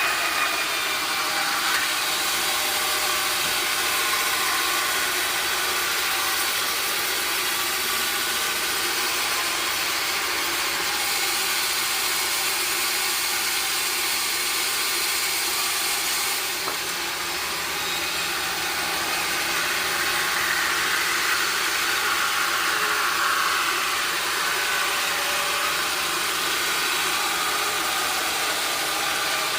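Sawmill saw machinery running steadily, a continuous mechanical hum and hiss with no breaks or strokes.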